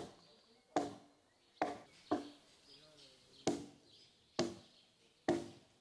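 A log being hand-hewed: seven sharp chopping strikes of a blade into the timber, about one a second, with birds chirping faintly between them.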